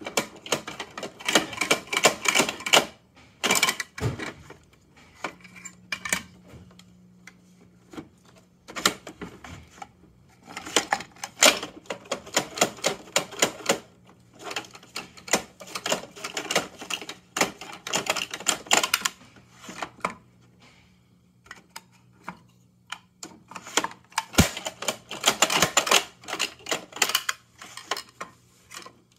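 Rapid plastic clicking and clattering from a toy rear-loader garbage truck and its small plastic bins being worked by hand. It comes in several bursts of a few seconds each, with short pauses between.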